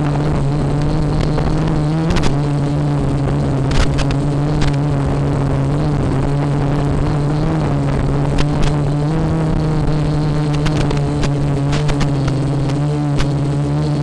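Quadcopter motors and propellers running with a steady, loud hum that dips and rises a little in pitch as the throttle changes, picked up by the onboard camera's microphone. Scattered sharp clicks sound over it.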